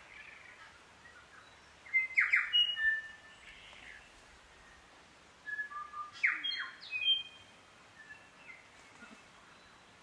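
Native New Zealand forest bird song: two loud phrases of short whistled notes mixed with rougher noisy notes, about two seconds in and again about five and a half seconds in. Fainter, more distant calls come in between.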